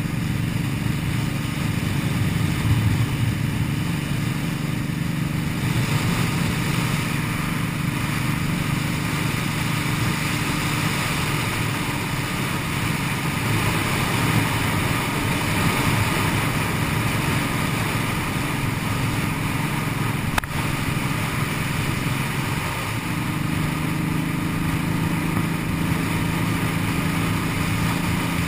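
Cruiser motorcycle engine running steadily while riding, under constant wind and road rush. The engine note changes about 23 seconds in, and there is one sharp click a little before that.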